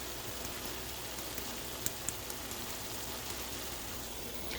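Ground turkey, potatoes and vegetables sizzling in a pan: a steady hiss with a couple of small pops about two seconds in.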